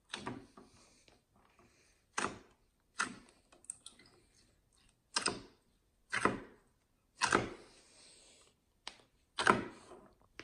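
Fingers pressing into thick, clear shampoo-and-dish-soap slime, making short clicky pops and squelches about once a second, each fading quickly. The clicks come from the slime being very thick after drying out with salt.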